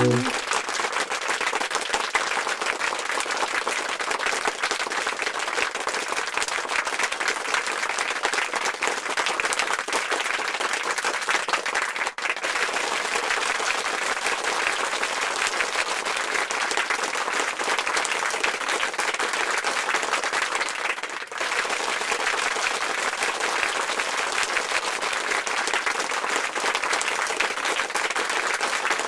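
Crowd applauding: dense, steady clapping, with two brief dips about 12 and 21 seconds in.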